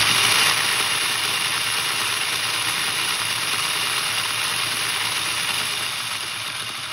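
3D-printed robotic actuator's motor spinning freely at full speed with no load, a loud steady whir that is strongest at the start.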